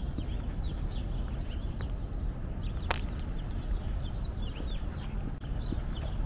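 Many short bird chirps over a steady low rumble, with the walker's footsteps on pavement and one sharp click about three seconds in.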